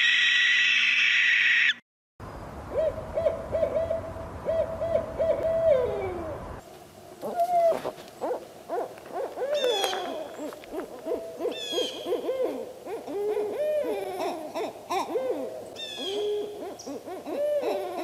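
Owls hooting: a quick run of short, level hoots over a low rumble, then, after a sudden change about six seconds in, many short rising-and-falling hoots with higher chirping calls mixed in. A loud, harsh screech fills the first two seconds.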